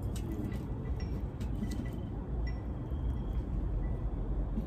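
A small knife cutting into a pumpkin's rind, faint scratchy clicks over a steady low rumble.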